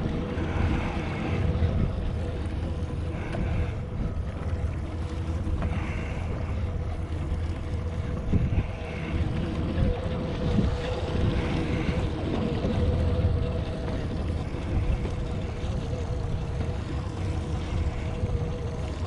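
Wind rumbling on the microphone and water lapping against a small fishing boat, over a steady motor hum.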